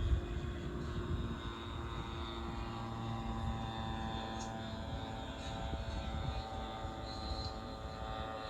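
Radio-controlled F3A aerobatic model airplane in flight, its motor and propeller giving a steady droning tone that drops in pitch near the end.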